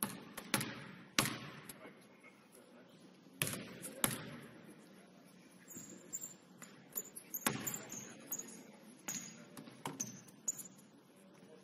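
Basketball bouncing on a hardwood gym floor: a handful of irregularly spaced bounces, each echoing in the hall.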